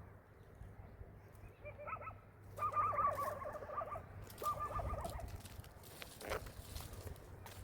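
An animal calls twice with a rapidly quavering cry, a long one and then a shorter one, with a few faint knocks around it.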